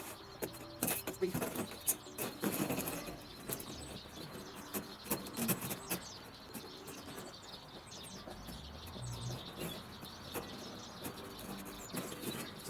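Irregular clicks, knocks and rustles of a pipe being pushed and worked down a narrow hole in the ground, with birds chirping in the background.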